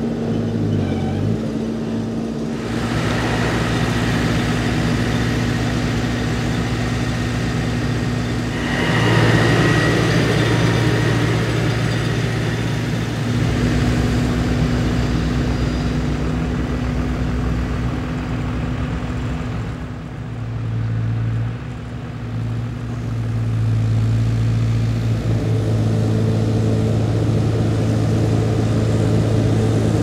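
Steyr 4130 Profi tractor's diesel engine running under load as it drives over a corn silage pile to compact it, the engine note rising and falling several times.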